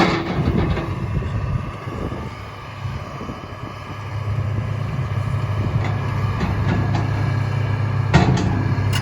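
Komatsu PC300LC-8 excavator's diesel engine working under hydraulic load as the boom and bucket move, its note growing louder and steadier about four seconds in. A single sharp clank near the end.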